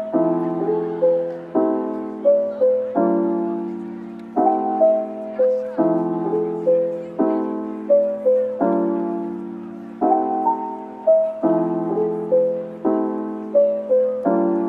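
Background music: a soft piano piece of struck chords and a simple melody above them, each note dying away before the next.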